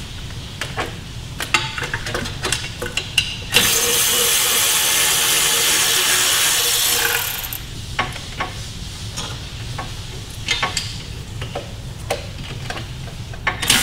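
Metal tools clinking and knocking against car parts as components are unbolted, with a power tool running steadily for about three and a half seconds starting around four seconds in, and starting up again right at the end.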